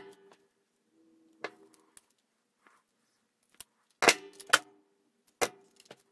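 Sharp metallic clicks and clinks of small hand tools and insulated spade connectors being handled on a wooden table, about five strikes, several with a short ring, the loudest two close together about four seconds in.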